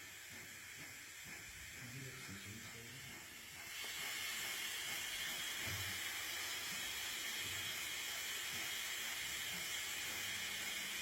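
A steady hiss that becomes louder and stays level from about four seconds in, with a few faint low sounds underneath.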